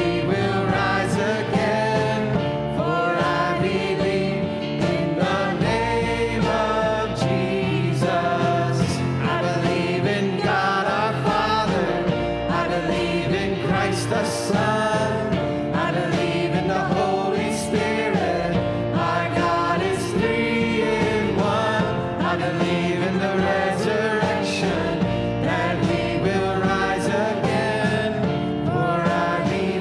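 Live church worship band performing a contemporary worship song: several voices singing together in harmony over guitars, keyboard and drums.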